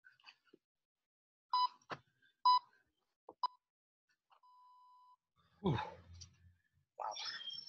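Interval timer counting down the end of a 45-second work interval: three short beeps about a second apart, then one longer steady beep. A thud and rustle of movement follow.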